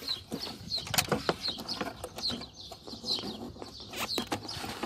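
Scattered clicks and rustles of electrical wiring being handled and pulled through a car's interior, with birds chirping repeatedly in the background.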